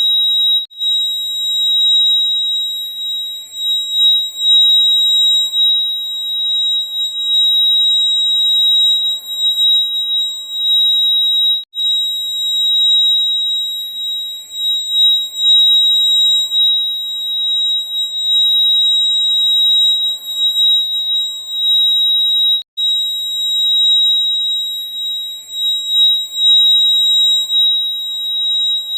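Fire alarm sounding a continuous high-pitched tone, cutting out for an instant twice, about eleven seconds apart.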